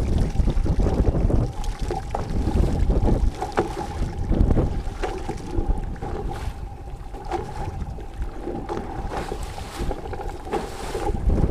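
Wind buffeting the microphone in gusts aboard a fishing boat on open water, with a steady hum running underneath and scattered small knocks.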